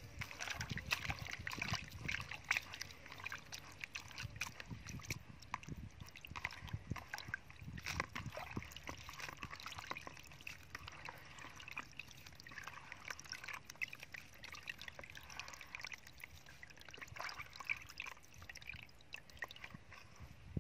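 Water poured into a plastic basin of small shrimp, then hands swishing and rinsing the shrimp in the water, with irregular splashing, sloshing and small clicks.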